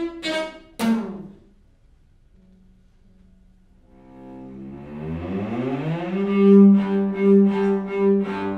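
String quartet playing, cello to the fore. Short detached bowed notes end about a second in. After a near-quiet pause with a faint low held note, the instruments slide upward in pitch together and settle into a held low note that pulses in repeated swells.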